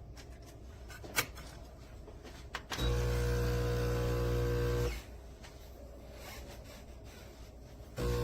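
Compact espresso machine's pump running with a steady buzzing hum for about two seconds, stopping, then starting again near the end; a sharp click about a second in.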